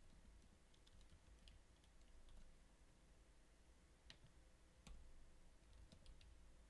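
Faint, scattered computer keyboard keystrokes over near silence: a few light clicks close together about a second in, then single clicks around four and five seconds in, and a short run of clicks near the end.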